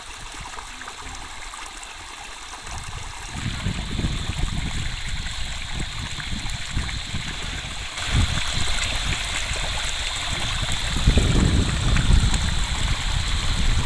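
Shallow river water running and trickling at the bank. From about three seconds in, an uneven low rumble joins it and grows louder near the end.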